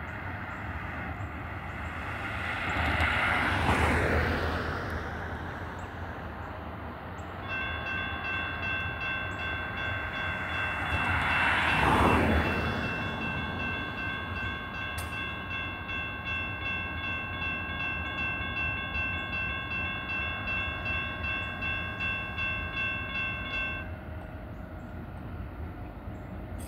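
Railroad grade-crossing warning bell ringing in a steady rapid pulse while the crossing gates lower, then cutting off suddenly a few seconds before the end once the gates are down. Twice before that, a passing road vehicle swells up and fades away, the second pass coming as the bell rings.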